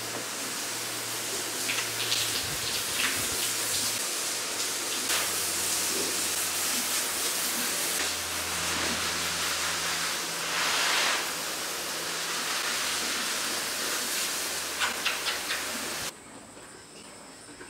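Water spraying from a garden hose onto a horse, a steady hiss over a low hum that cuts off suddenly near the end. A few sharp clicks follow.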